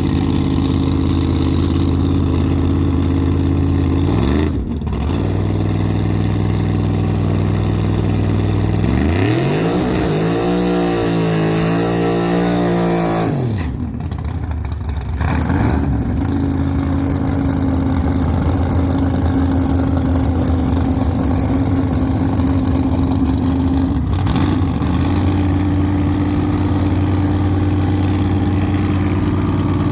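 Engine idling steadily, revved up and back down once about nine to thirteen seconds in, with brief dips in speed near five seconds and again around fourteen seconds.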